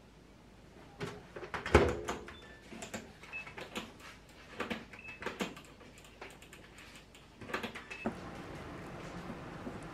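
Hauzen built-in oven being loaded and set: the door shuts with a knock about two seconds in, then a run of button clicks and short electronic beeps as it is programmed. Near the end its fan starts up with a steady hum as it begins to bake.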